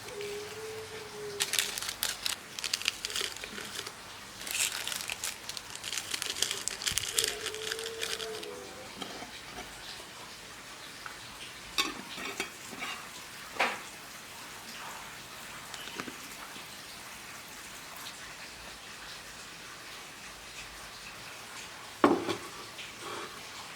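Food frying in a pan, sizzling in two spells over the first eight seconds or so. After that come scattered sharp knocks of a utensil against the pan.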